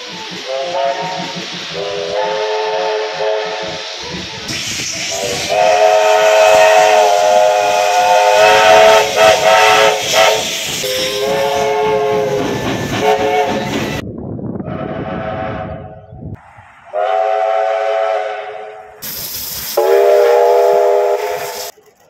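Steam locomotive whistles sounding a string of blasts, each a chord of several tones, the longest about six seconds, over the hiss of escaping steam. The sound breaks off abruptly a few times between blasts.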